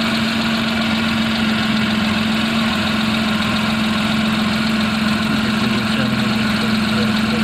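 Car engine running steadily at an even speed, with a constant hum.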